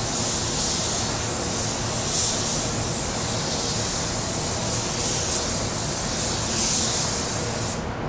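Spray gun hissing as compressed air atomizes silver metallic basecoat, laying a light final coat at lowered pressure, about 11 PSI. The hiss swells and eases with each pass and cuts off abruptly near the end.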